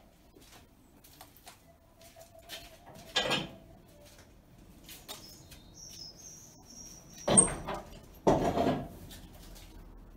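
Up-and-over garage door pulled down and shut: a loud bang about seven seconds in and a second clattering crash about a second later, with a smaller knock about three seconds in.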